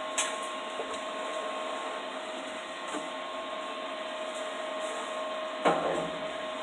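Stick-welding arc from a 3/32-inch 7018 low-hydrogen rod at 70–75 amps: a steady hiss with a faint hum under it, and one sharper pop near the end.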